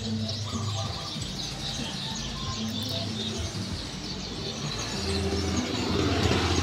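Background music made of held low notes, with birds chirping.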